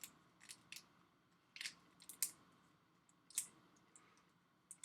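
Faint plastic parts bag crinkling and crackling as it is opened, with a few sharp, irregular crackles about a second apart.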